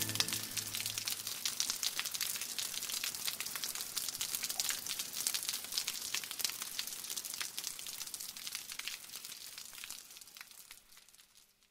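Rain sound effect: a dense patter of raindrops that fades out slowly to near silence. The last held note of the music dies away in the first second.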